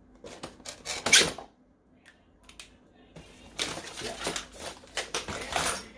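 Packaging and art supplies being handled: a cluster of sharp rustles and clicks in the first second and a half, a short lull, then steady rustling and clattering through the second half.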